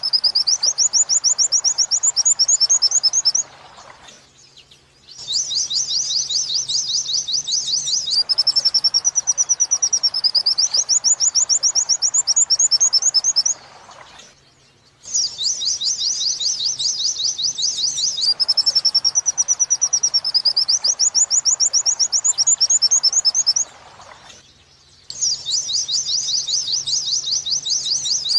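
White-eye (pleci) song on a looped tutor recording in the 'wit-wit sambung kunti' style. A wavering high warble alternates with fast runs of rising 'wit-wit' notes, and the sequence repeats about every ten seconds with short pauses between.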